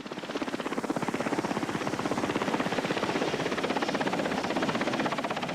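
Helicopter rotor blades chopping in a fast, even beat, growing louder over the first couple of seconds.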